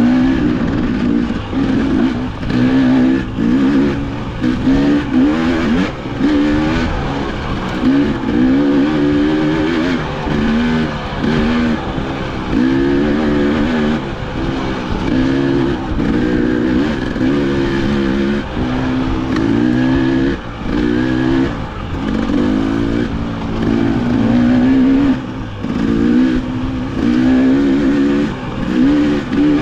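Two-stroke dirt bike engine under way on a trail, its revs climbing and dropping back over and over, about every second or two, as the throttle is worked.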